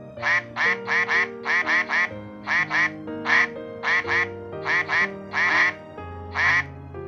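A duck quacking over and over, about seventeen short quacks, often in quick pairs or threes. Background music with long held notes plays underneath.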